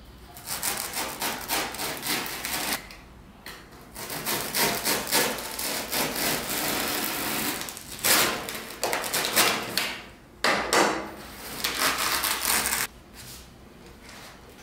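Utility knife blade cutting and carving into a block of black foam: rapid scraping strokes in spells of a few seconds with short pauses between, stopping about 13 seconds in.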